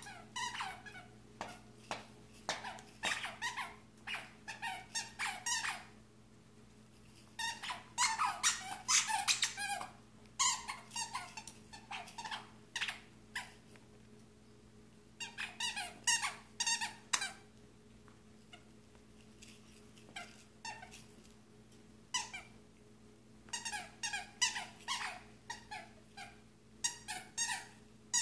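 Squeaker in a plush dog toy squeaking rapidly over and over as a vizsla chews it, in runs of many quick squeaks a few seconds long with short pauses between.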